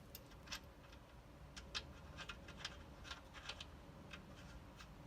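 Faint, irregular small metallic clicks and ticks from threading and seating the motorcycle's front axle by hand.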